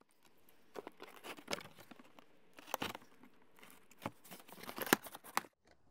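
Packing tape being peeled and torn off a cardboard shipping box, an uneven run of crackles and snaps with crinkling tape and cardboard, sharpest toward the end.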